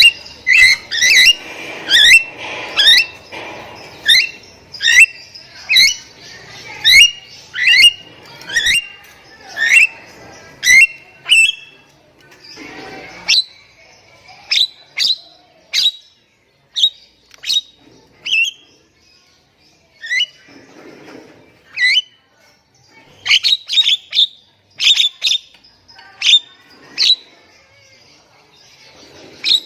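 Jalak Nias calling: short, sharp whistled notes that sweep down in pitch. They repeat about once a second for the first dozen seconds, then come more sparsely, singly and in small clusters, with pauses between.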